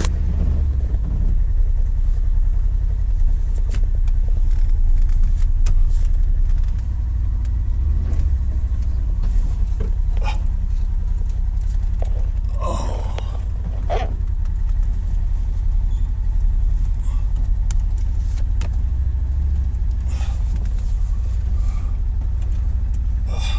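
Steady low rumble of a car's engine and road noise heard from inside the cabin while driving, with a few faint clicks and brief voice-like sounds.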